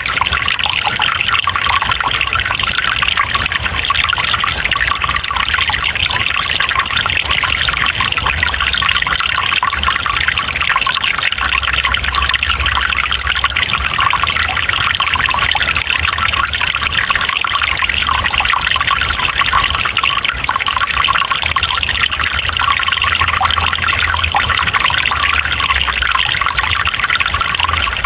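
Water trickling and flowing steadily, with an even splashing rush that stays constant throughout.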